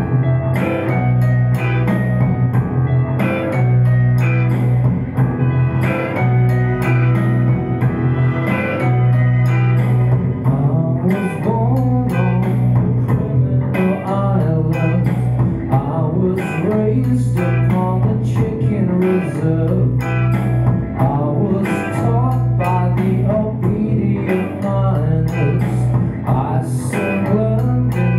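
Electric guitar, a Telecaster-style solid-body, played live in a bluesy rock style, picked notes over a steady low drone.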